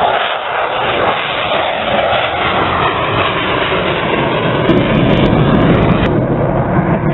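Airbus A400M's four TP400 turboprop engines during a low, close flypast, a loud steady drone with a deep throb. About six seconds in the sound changes abruptly to a duller, more distant aircraft drone.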